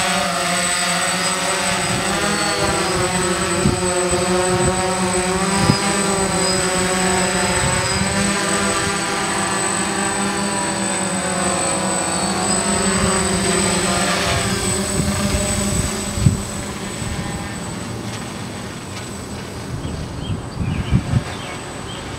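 DJI hexacopter's six electric motors and propellers buzzing in flight, several close pitches wavering against one another. The sound weakens after about 16 seconds as the craft climbs away, with a few short low thumps near the end.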